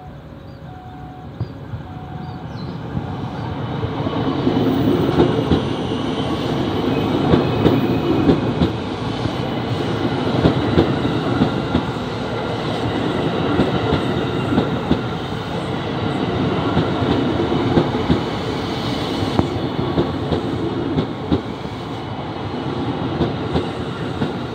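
KRL Commuter Line TM6000 (ex-Tokyo Metro 6000 series) electric train approaching and passing close by. It grows louder over the first few seconds, then holds a steady rumble of wheels on rail with repeated clicks over the rail joints.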